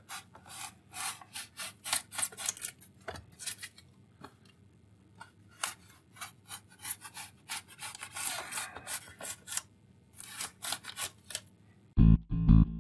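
Linoleum knife carving blue foam board: a run of short, sharp scraping cuts, with a brief pause partway through. Guitar music comes in near the end.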